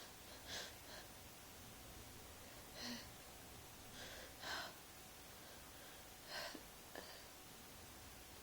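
A person with a cold breathing in short, soft breathy sounds, about four of them spread over several seconds, against near silence.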